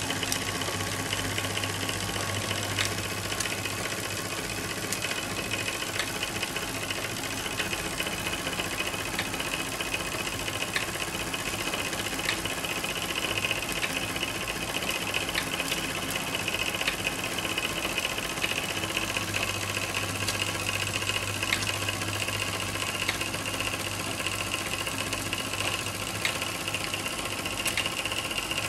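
MF Twin model steam engine running slowly on live steam, driving the belt-driven toy machines of a Jensen 100 workshop. It makes a steady mechanical running sound with scattered light clicks over a constant hiss.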